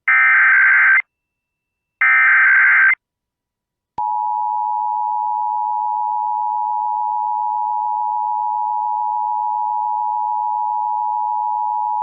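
Emergency Alert System alert for a required monthly test: two SAME header data bursts, each a harsh buzzing screech of about a second, a second apart. About four seconds in, the steady two-tone EAS attention signal (853 and 960 Hz) begins and holds unbroken. It announces the alert message that follows.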